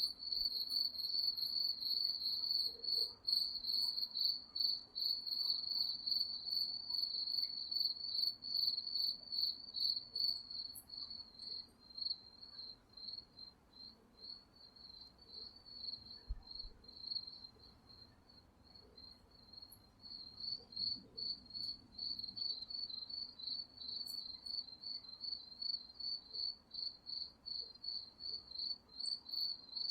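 Crickets chirping in a continuous chorus: a high, rapidly pulsing trill that grows fainter for several seconds in the middle, then comes back.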